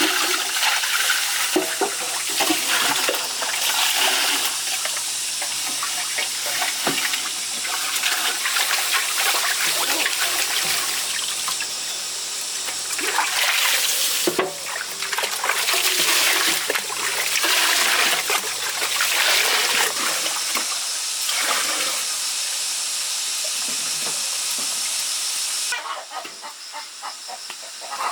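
Water running and splashing, rising and falling in surges, with a faint low hum under it for most of the stretch.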